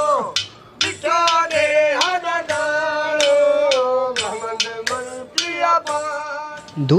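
A man singing a Sufi folk kalam in a high, held, ornamented voice, a phrase ending with a falling glide at the start, then a short break before the next line. Sharp percussion strokes keep a beat under the singing.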